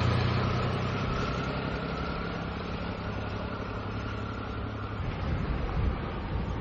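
Motorcycle engine running as it pulls away, fading over the first second or two to a lower steady hum. About five seconds in, the hum gives way to a rushing, wind-like noise.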